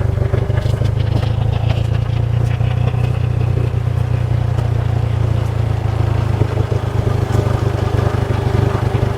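Motorcycle engine running steadily while being ridden, a constant low drone with no change in pace.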